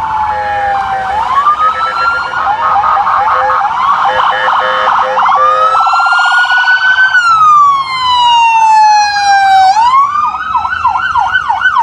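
Emergency-vehicle sirens in a slow-moving procession of police vehicles, wailing in long rising and falling sweeps with a steady pulsing horn-like tone under them for the first half, then switching to a fast repeating yelp about ten seconds in.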